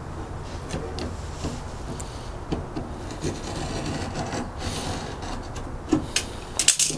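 Utility knife blade scoring thin wood veneer along a wooden block used as a straight edge: a steady scraping with scattered small clicks, a few sharper ones near the end.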